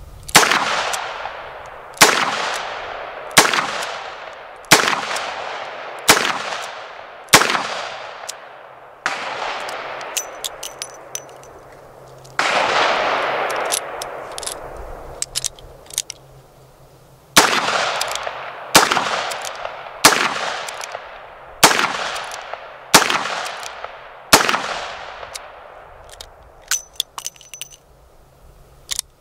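Dan Wesson 715 .357 Magnum revolver fired twelve times, in two strings of six shots about a second and a half apart, each shot with a ringing tail. Between the strings and after the last shot come light metallic clinks from the cylinder being opened and spent cases ejected for a reload.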